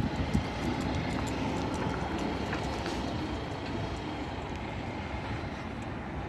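Steady low rumbling outdoor noise with a few faint clicks.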